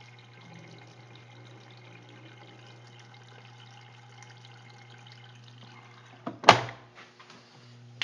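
Water trickling through and draining out of the fabric-softener compartment of a front-loading washer's detergent drawer during the final rinse, over a steady low hum. About six and a half seconds in comes a single brief loud thump.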